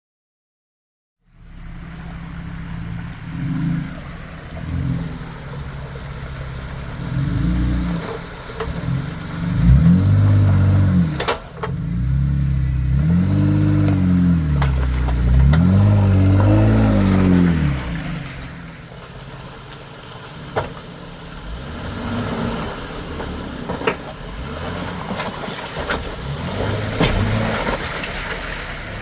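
An off-road vehicle's engine revving repeatedly under load on a rocky ledge climb, its pitch rising and falling several times and loudest in the middle, with a few sharp knocks. It starts about a second in, after silence.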